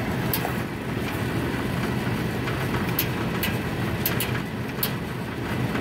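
The electric motor of an ACDelco coal stoker running steadily and turning the auger gearbox through a V-belt, a constant low hum. A few sharp, light ticks come at irregular moments.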